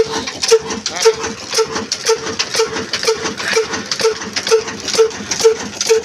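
Old black single-cylinder stationary diesel engine of the Ruston Hornsby type, running steadily with a slow, even beat of about two per second and a clatter on each beat.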